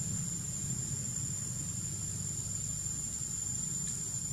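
Forest insects droning: one steady high-pitched whine that does not change, over a low steady rumble.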